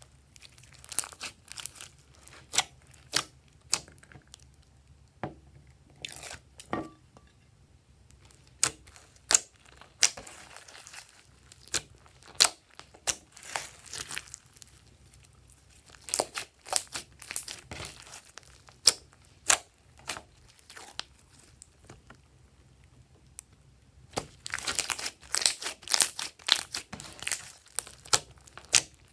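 Glossy slime being kneaded and stretched by hand, making irregular sticky clicks and pops, with a dense run of them near the end.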